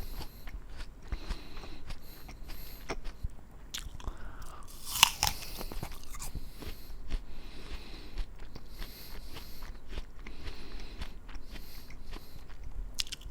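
An apple being bitten and chewed close to the microphone: a run of small crunches and mouth clicks, with one loud, crisp bite about five seconds in.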